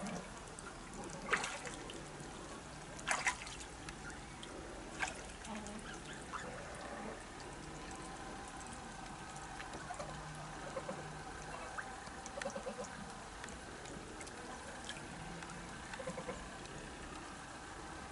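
A steady rushing hiss, with scattered short calls from fowl: a few sharp, loud ones in the first five seconds and fainter honk-like calls later.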